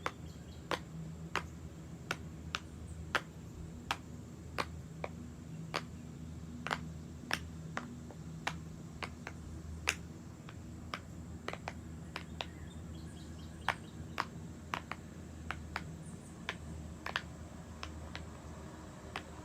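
Bubbles of a silicone 100-bubble pop-it fidget toy being pressed through one after another, giving a string of sharp pops about two a second, unevenly spaced.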